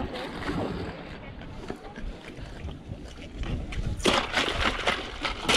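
Water sloshing and splashing against a small boat, with a louder burst of splashing starting about four seconds in.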